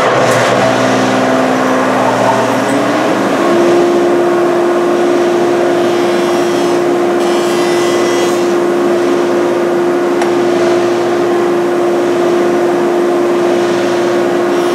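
Jointer running loud and steady while edge-jointing a rough walnut board. Its hum rises in pitch over the first few seconds as the cutterhead comes up to speed, then holds, with the knives cutting the edge of the board.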